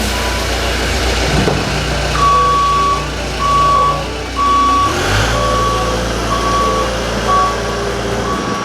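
Bobcat skid steer running with its backup alarm beeping. The beeps start about two seconds in and repeat roughly once a second over the engine's steady drone, and the engine note shifts about halfway through.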